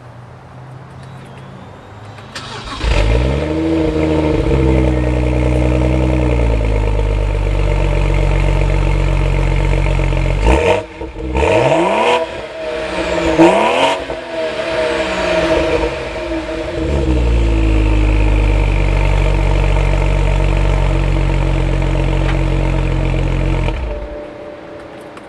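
BMW 135i's turbocharged 3.0-litre inline-six on its stock exhaust: it starts about two seconds in with a brief flare of revs that settles to a steady idle. About halfway through it is revved twice in quick succession, falls back to idle, and is shut off near the end.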